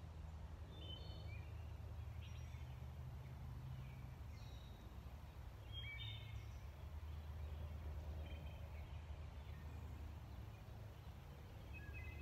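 Woodland ambience: scattered short bird chirps and calls, a few every couple of seconds, over a quiet steady low rumble.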